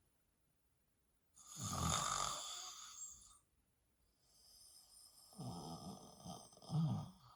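A woman snoring while asleep: two snoring breaths, the first about a second in, the second longer, with a few low pulses near its end.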